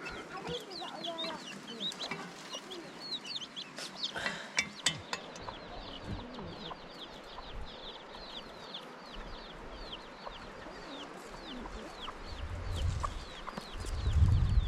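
Chickens, with a steady run of rapid, high, falling peeps like chicks calling, several a second. A low rumble builds near the end.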